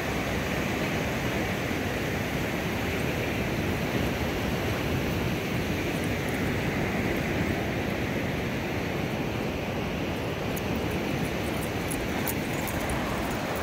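Steady rushing of ocean surf mixed with wind noise on the microphone.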